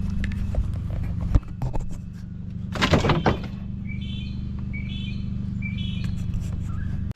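An engine running steadily at idle, with scattered knocks and a louder clatter about three seconds in. A bird chirps three short times near the middle. The engine sound cuts off suddenly near the end.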